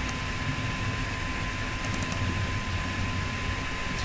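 A few faint computer keyboard taps about halfway through, over steady microphone hiss and a thin, faint steady whine.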